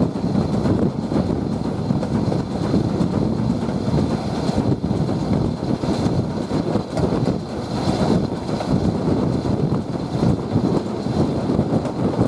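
A steam-hauled train behind a BR Standard Class 4 2-6-4T tank locomotive running along the line. It is heard from an open carriage window as a steady, loud rumble of the locomotive and wheels, with wind buffeting the microphone.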